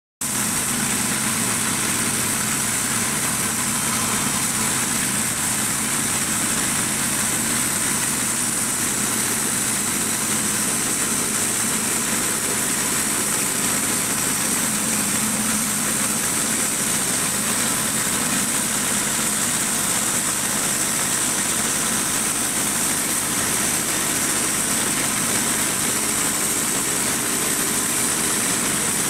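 Portable bandsaw mill's gas engine running steadily under load as the band blade cuts through a white ash log, with a steady high hiss over the engine.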